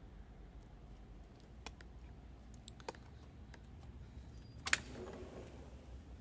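A few faint, sharp clicks and taps over a low steady hum, with one louder click about three-quarters of the way through.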